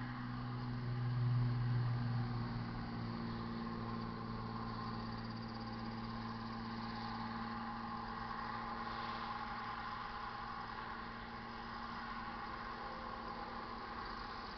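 Steady engine hum, with a brief louder swell about a second in.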